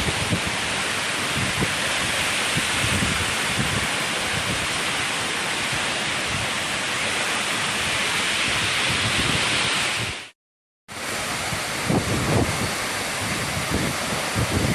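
Waterfall pouring, a loud steady rush of falling water. About ten seconds in the sound cuts out for half a second, and after it low buffets of wind hit the microphone.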